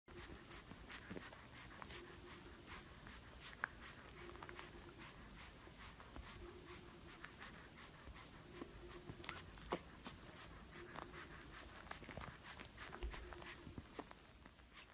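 Bulldog puppy sucking and chewing on a pacifier: a steady run of faint small clicks and smacks, irregular, several a second.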